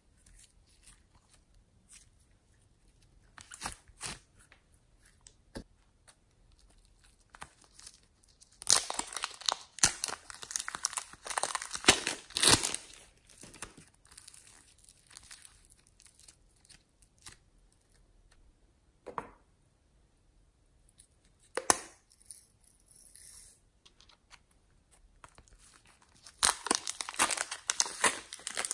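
Glossy slime and soft modelling clay being stretched and pulled apart by hand, giving sticky tearing noises made of many small clicks. They come in two dense runs, about a third of the way in and again near the end, with scattered single clicks between.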